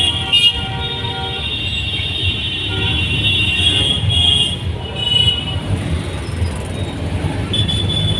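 CNG auto-rickshaw engine running with a steady low rumble, heard from inside the cabin, while vehicle horns beep several times in the surrounding traffic.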